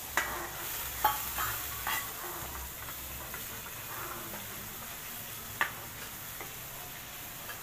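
Chili-and-tamarind gravy sizzling in hot oil in an aluminium kadai while a steel ladle stirs it, knocking against the pan a few times.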